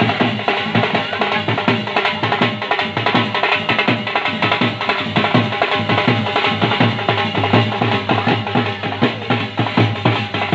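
Loud dance music driven by fast, steady drumming.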